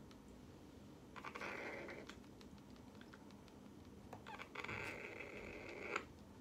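Harlequin macaw chick (blue-and-gold × green-winged hybrid) giving raspy food-begging calls while being syringe-fed: a short call about a second in, then a longer one of about a second and a half near the end that cuts off suddenly.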